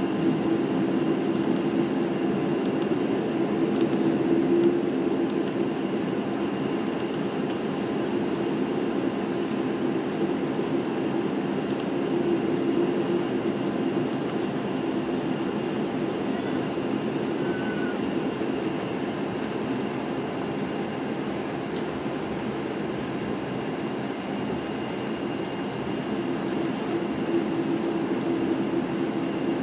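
Steady cabin noise inside a Boeing 747-8i as it taxis, with its GEnx-2B engines running near idle. It is an even hum and rumble with no spool-up.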